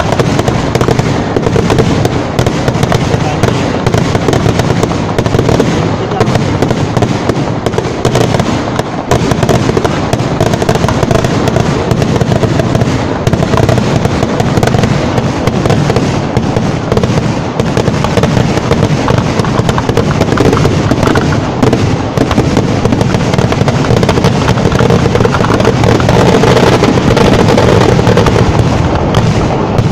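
Kerala temple-festival fireworks barrage (vedikettu): a dense, unbroken volley of firecrackers and shells going off in very rapid succession, a continuous thick rattle of bangs. It stays at full loudness throughout and begins to ease only right at the end.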